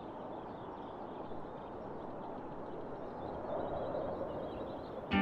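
Outdoor ambience: birds chirping faintly over a steady hiss. Guitar music cuts in at the very end.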